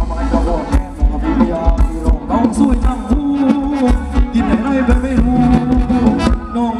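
Live Thai ramwong dance band playing loud, amplified music: a steady percussion beat under a melody line.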